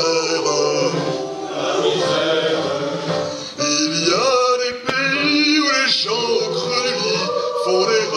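A choir singing, with long held notes that waver in pitch.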